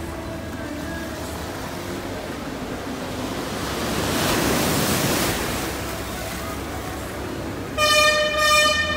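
Sea water washing in the cave, rising to a splashing surge of a wave about four seconds in. Near the end a tour boat's horn sounds a loud, held blast that dips briefly once.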